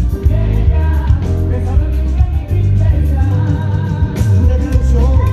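Pop music with a sung vocal line over a strong bass beat and guitar.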